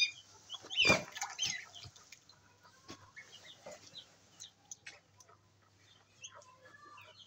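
Downy waterfowl chicks peeping: short, high chirps, many in the first two seconds and sparser after, with a thump about a second in.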